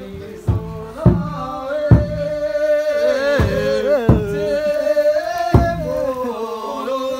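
A group singing a traditional local song together, the melody held and gliding. A few sharp thumps cut through it, the loudest about one and two seconds in.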